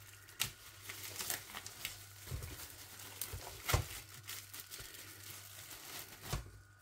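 Clear plastic wrap being peeled off a pizza, crinkling and crackling irregularly with several sharper crackles.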